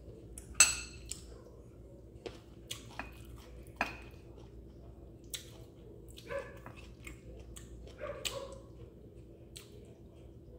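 Metal fork clinking and scraping on a ceramic plate: a handful of short sharp clinks spread out, the loudest about half a second in.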